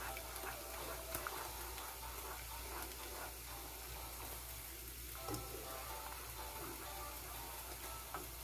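Wooden spoon stirring a thin sauce in a saucepan over a faint steady hiss of the simmering liquid, with a light knock of the spoon against the pan about a second in and again around five seconds.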